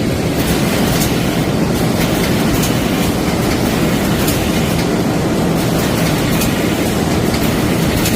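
Automatic shrink-wrap packaging machine for lunch-box containers running in production: a steady mechanical noise with light clicks recurring about once or twice a second.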